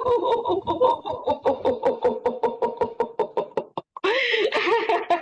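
A woman laughing on the vowel "u" in a quick even run of short pulses, about five a second on one slightly falling pitch. This is a laughter-yoga vowel exercise. After a brief break near the end comes a louder, breathier laugh.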